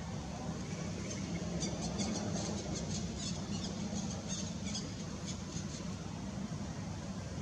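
Young monkey giving a rapid string of short, high-pitched squeaks, about four a second, for some four seconds, over a steady low background hum.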